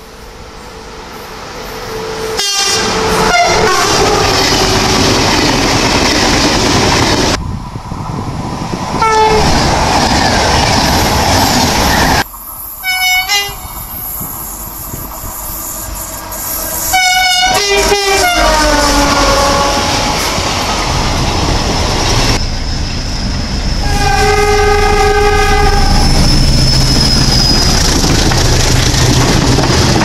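Trains passing at speed and sounding their air horns as greetings from the drivers. There are several short blasts and longer calls over separate passes, one dropping in pitch as its train goes by, another a steady note held for about two seconds, over the loud rumble and rattle of the trains on the track.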